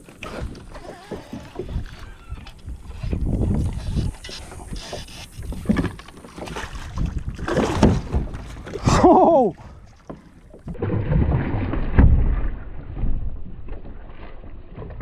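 Wind rumbling on the microphone and handling knocks while a hooked bass is fought on a baitcasting rod and reeled to the boat, splashing at the side near the end. A short falling pitched sound comes about nine seconds in.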